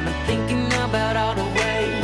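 Background pop music with a steady beat and a sustained bass line that changes note about a third of a second in.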